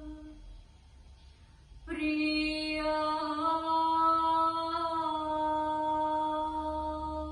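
A single voice chanting a sloka verse in long held notes; it breaks off about half a second in and, after a short pause, comes back on a long sustained note that steps up slightly in pitch partway through.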